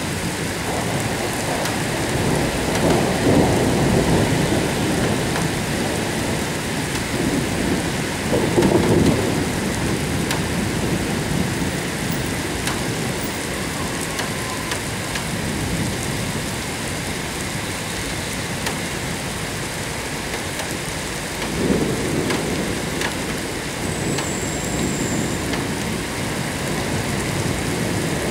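Steady rain of a thunderstorm, with thunder rumbling over it: one roll builds about two seconds in, another peaks about eight seconds in, and a shorter one comes past twenty seconds.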